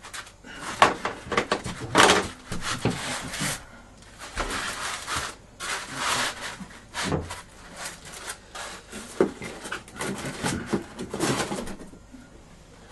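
A large board and a veneered model glider wing panel being handled and shifted on a wooden workbench. Irregular scrapes, slides and knocks of board and wood follow one another and stop about a second before the end.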